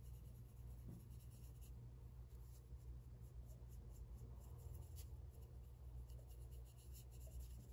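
Faint, scratchy strokes of a small paintbrush applying liquid blackening solution to a small silver piece resting on a paper towel, over a low steady hum.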